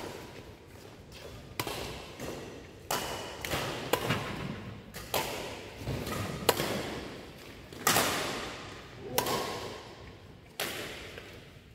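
Badminton rackets striking a shuttlecock in a doubles rally: about eight sharp hits, a second or so apart, each ringing on in the echo of a large hall.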